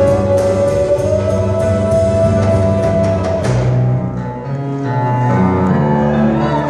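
Live big-band jazz: the band holds a long note over drum and cymbal hits. About three and a half seconds in the drums drop out, and upright bass notes and sustained band chords carry on.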